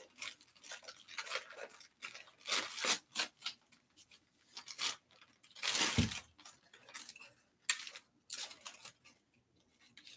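Plastic protective wrap being pulled and torn off bicycle handlebars: irregular rustling and crinkling, with a louder crunch and thump about six seconds in.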